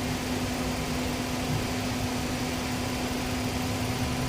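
Truck running with a steady hum over a low rumble, with a rattle from under the truck that the owner thinks could be the suspension.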